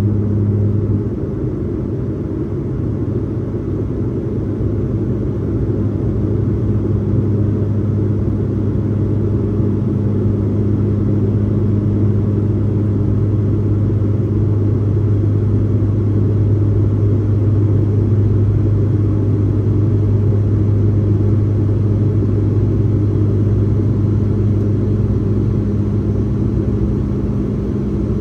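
Cabin drone of a Bombardier Dash 8 Q400 turboprop in its climb, from its two Pratt & Whitney Canada PW150A engines and six-blade propellers: a steady low hum with a strong deep tone. The drone dips slightly about a second in, then slowly builds again.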